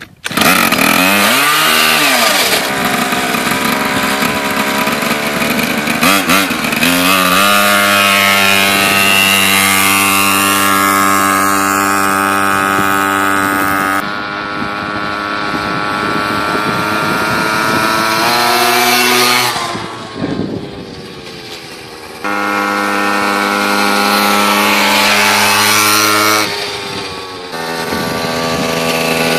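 A 50cc pocket bike engine catching just after being flooded, its revs wavering up and down at first, then held high and steady as the bike is ridden. Twice the revs drop off and then pick up again.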